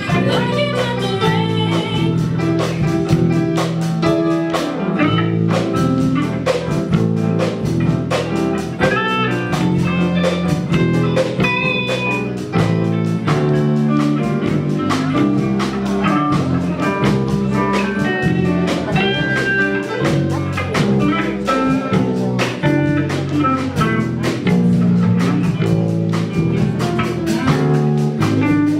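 A band playing an instrumental passage, led by guitar over bass and a drum kit keeping a steady beat.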